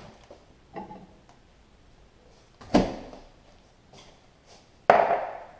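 Two sharp knocks about two seconds apart: the microwave door shutting, then a glass measuring cup of melted soft plastic set down on a granite countertop, the second knock ringing briefly.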